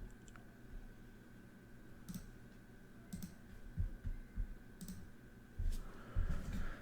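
A few quiet, scattered clicks, with soft low knocks in the second half and a faint rustle near the end.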